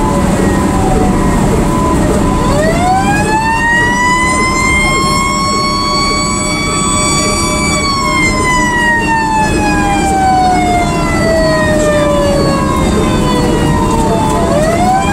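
Fire engine siren wailing: the pitch climbs over a few seconds, falls slowly, and begins climbing again near the end, over the truck's engine noise, heard from inside the cab.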